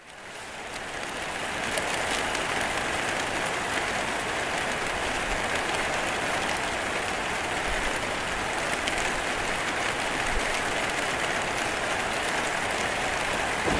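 Steady rain with a dense patter of drops, fading in over the first couple of seconds and then holding even.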